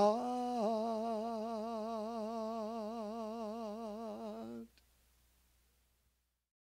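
Male singer holding one long sung note with a steady vibrato, unaccompanied, fading slightly, then cutting off abruptly about four and a half seconds in.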